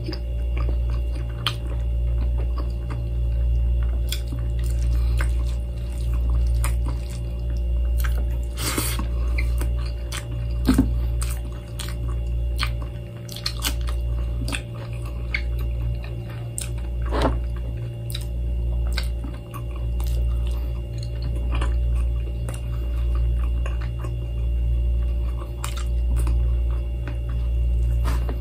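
A person chewing and biting food close to the microphone, with small clicks and wet mouth sounds while eating by hand. Under it runs a steady low hum that swells and fades about every two seconds.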